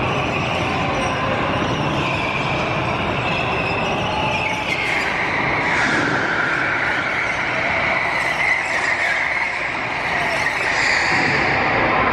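Go-karts running around an indoor track, their motors giving a high whine that drops in pitch about five seconds in and rises again near the end.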